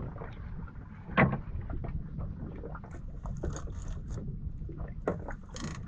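A knife cutting bait on a boat's gunwale gives scattered knocks and scrapes, the sharpest about a second in, with a brief hiss near the end. Under it runs the steady low rumble of the boat at sea.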